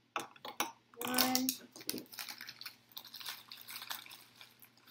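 Measuring spoon scooping and scraping granulated sugar: a run of small, crisp clicks and crackles, with a short vocal sound about a second in.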